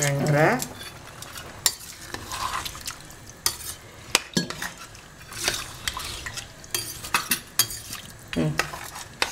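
Steel ladle stirring rice and liquid in a stainless-steel pressure cooker, scraping and clinking sharply against the pot again and again.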